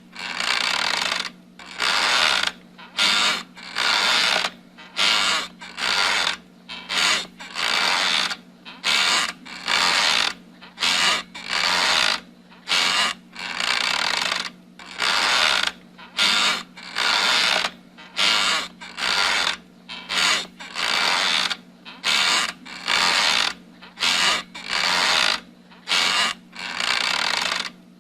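Wooden rocking chair creaking rhythmically as it rocks, a longer creak and a shorter one by turns, about one to two creaks a second.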